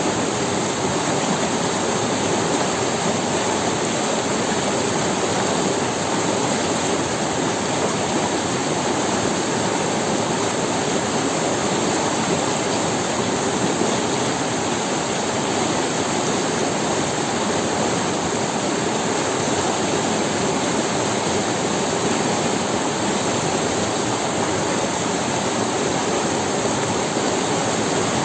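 Forest river running over stones: a steady, even rush of flowing water.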